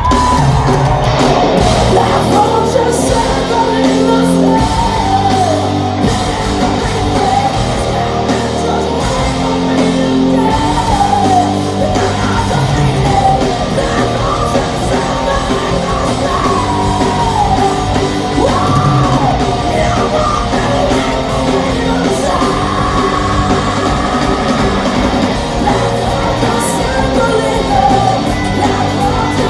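Hard rock band playing loud and live: distorted electric guitars, bass and drums under a woman's high sung and shouted lead vocal, heard from the audience in a large hall.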